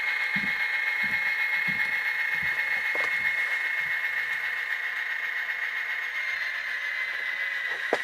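Kato GP35 model locomotive's Tsunami sound decoder playing an EMD 567 diesel through its small onboard speaker. A steady high whine runs throughout and drops slightly in pitch near the end, over a soft, regular knocking about every two-thirds of a second.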